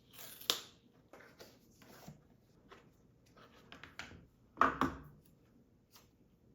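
Close-up handling sounds of a new iPad and its packaging being unboxed: soft rustles and light clicks, with a louder rustling scrape about four and a half seconds in.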